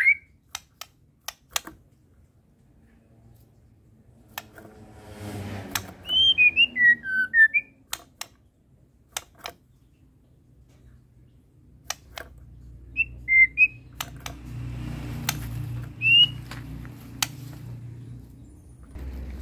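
White-rumped shama (murai batu) singing several short whistled phrases of rising and falling notes, with gaps of a few seconds between them, among scattered sharp clicks. A low hum comes in during the second half.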